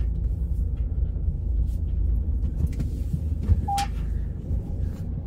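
Wind buffeting the microphone: a steady low rumble. A brief high squeak comes about three and a half seconds in.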